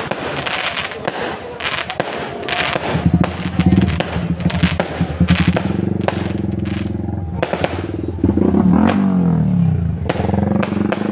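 Fireworks bursting overhead in a rapid series of bangs and crackles. From about three seconds in, an engine that sounds like a motorbike runs under the bangs, its pitch sliding down near the end as it passes.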